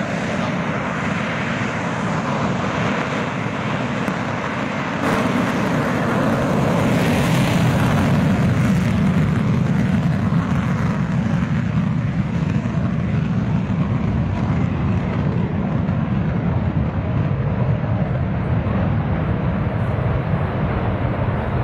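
JF-17 Thunder's single Klimov RD-93 turbofan roaring in afterburner for the takeoff roll. It is a loud, steady jet roar that steps up about five seconds in and holds as the fighter accelerates down the runway and lifts off, its high hiss thinning out in the second half.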